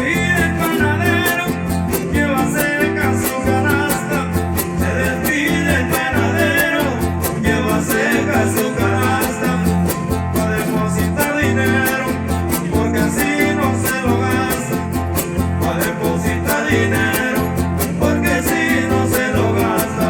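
Huasteco trio playing a huapango: a violin melody over the rhythmic strumming of the jarana and the huapanguera.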